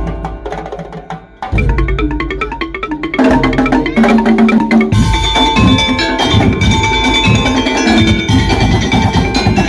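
Madurese ul daul (tong tong) ensemble playing, with drums, wooden knocks and tuned metal percussion. The music thins out and fades over the first second or so, comes back with a run of pitched notes, and the full ensemble is loud again from about three seconds in with a steady beat.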